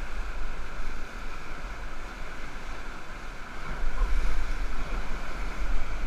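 Whitewater rapids rushing and churning around an inflatable raft, a steady loud wash of water noise, with a low rumble of wind on the microphone underneath.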